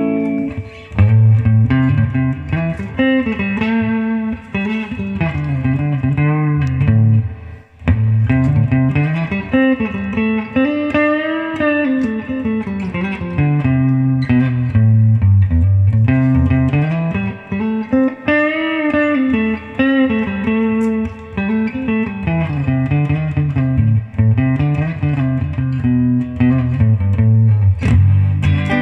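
Guitar music playing continuously, with a low note line that climbs and falls.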